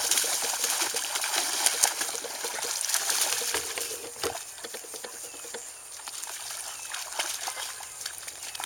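Water splashing and sloshing as a dog moves through it, with irregular splashy ticks, busier for the first few seconds and then quieter.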